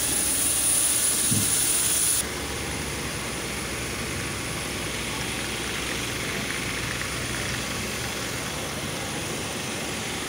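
Steady hiss of a parked jet airliner's engine or auxiliary power unit with a high whine on top, cut off abruptly about two seconds in, leaving a quieter steady roar of apron noise.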